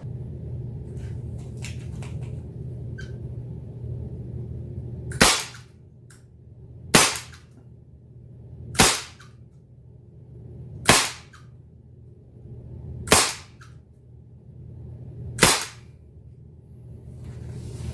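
Daisy Powerline Model 44 CO2 pellet revolver firing six shots, one sharp crack about every two seconds, which empties its six-shot cylinder. A few light clicks come before the first shot.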